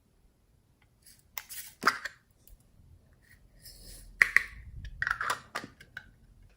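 Slime being worked by hand, giving irregular sticky clicks and crackles in two clusters with quiet gaps between.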